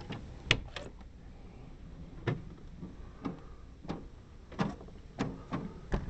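Motorhome entry door latch clicking open twice, then a string of irregular knocks and thuds as someone climbs in through the door.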